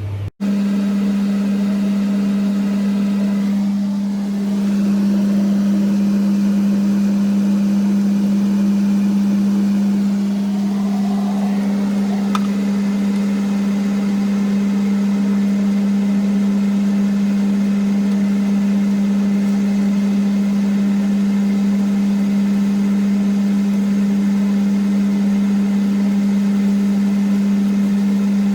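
Kitchen extractor hood fan and ventilation running at maximum: a loud, steady hum with a strong low tone and fan noise.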